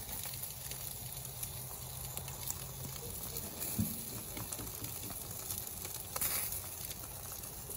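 Bacon-wrapped stuffed jalapeño peppers sizzling on a gas grill, with scattered faint crackles.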